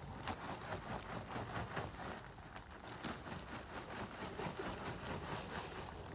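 Dense, irregular patter of small clicks and rattles from river rock being shifted and handled in a fabric-lined drain hole.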